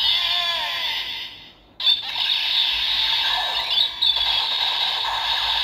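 DX Build Driver toy belt playing its electronic Vortex Finish finisher sound effects through its small speaker. Falling swoops come first, then after a brief drop about a second and a half in, a dense, continuous blast of effects.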